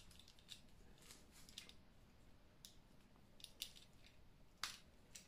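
Faint, scattered crackles and clicks of Gorilla Tape being stretched and wrapped by hand around a fishing rod handle, with one sharper click near the end.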